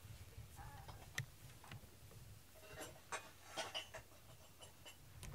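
Faint, scattered soft clicks and rustles of a cat moving and nosing about on a fleece blanket while a hand strokes it.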